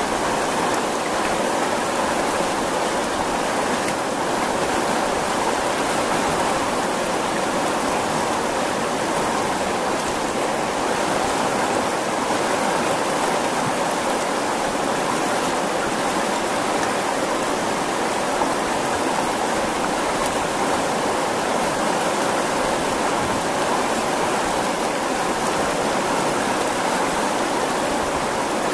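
Fast, turbulent water of the Botan River rushing past the rocks at its bank: a steady, even rush of flowing water with no breaks.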